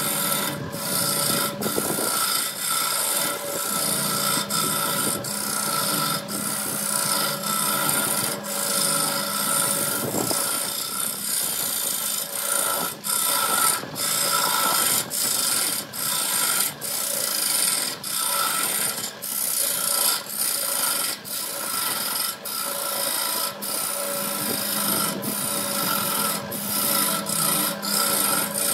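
Hand-held turning tool cutting a spinning wood blank on a wood lathe: a steady rasping scrape of shavings peeling off, over a steady hum from the lathe, broken by many brief dips as the tool eases off the wood.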